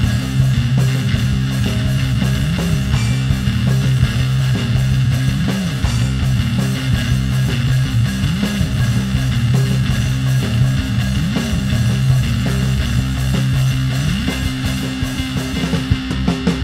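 Background rock music led by guitar, with strong, steady low bass notes.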